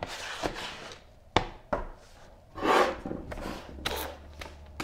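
Plastic-packaged parts and a blister-packed punch set being set down and shifted on a wooden table: several sharp knocks and taps in the first two seconds, then plastic crinkling and rubbing.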